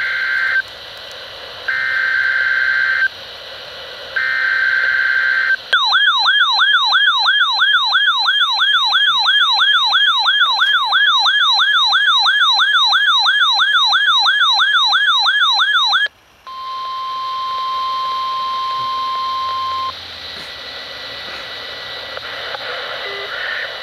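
NOAA Weather Radio weekly test signal. It opens with three short bursts of SAME digital header data tones. A weather radio receiver's warbling alert siren follows, sweeping about three times a second for roughly ten seconds. Then comes the steady 1050 Hz warning alarm tone for about three and a half seconds.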